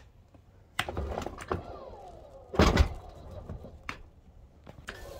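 Dometic power awning run out a little further on its electric motor: a short whine falling in pitch, then a loud thunk about two and a half seconds in, with lighter knocks after it.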